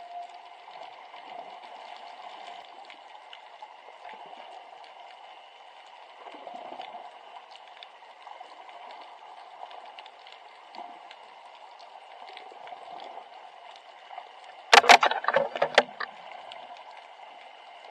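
Choppy water sloshing and lapping against a small fishing boat's hull in rough seas. A loud burst of slaps and knocks comes about fifteen seconds in.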